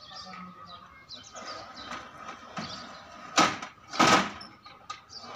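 A large metal basin clattering against a stack of metal pans as it is pulled off a wooden cart: two loud metallic scrapes a little over half a second apart, the second one longer.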